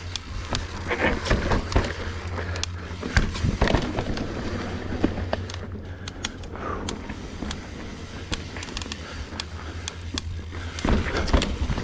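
Trek Slash 9.8 full-suspension mountain bike rolling along a dirt trail: a steady low rumble of wind and tyres, with frequent sharp clicks and knocks from the chain, frame and tyres hitting roots and rocks.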